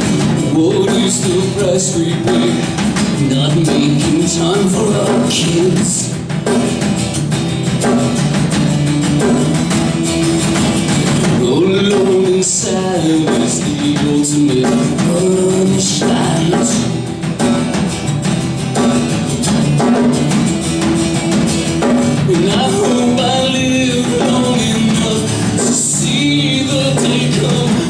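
Live acoustic guitar music, played steadily without a pause.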